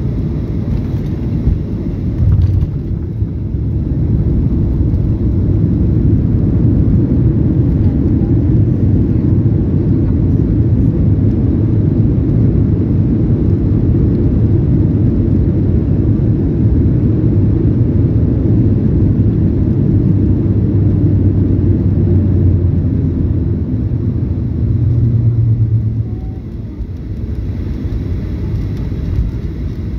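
Boeing 737-800 landing, heard from inside the cabin: a bump about two and a half seconds in, then a loud steady rumble of engines and runway as the jet rolls out, dropping off sharply about four seconds before the end.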